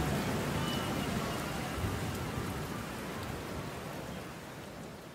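Heavy rain on a moving car, heard from inside the cabin: an even hiss over a low road rumble. It fades out near the end.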